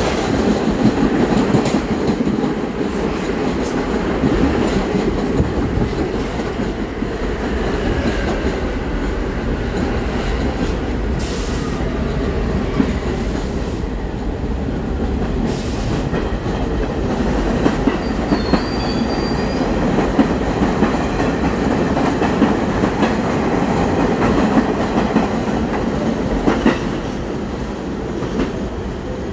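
New York City subway train running close alongside the platform: a steady rumble of wheels on the rails with scattered clicks over rail joints and a brief faint wheel squeal about two-thirds of the way through.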